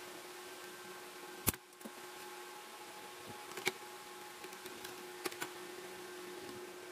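A circuit board handled on a wooden table: a few sharp clicks and light knocks over a faint steady hum. The loudest click comes about a second and a half in.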